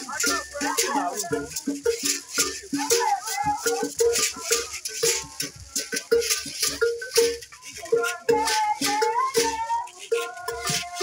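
Beaded gourd rattles shaken in a fast, steady rhythm over a repeating low beat, with voices singing a song.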